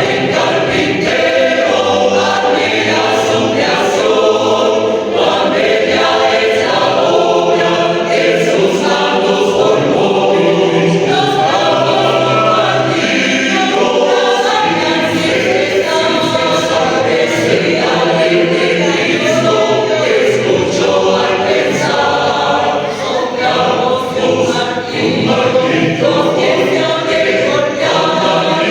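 A choir singing, many voices together in sustained chords.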